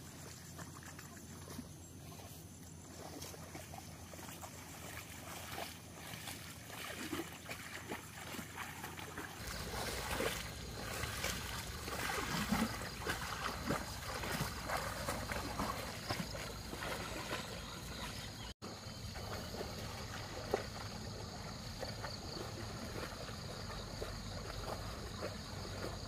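Muddy water sloshing and splashing as a water buffalo and a person wade through a flooded rice paddy, tilling it behind the buffalo; the splashing grows louder for several seconds in the middle.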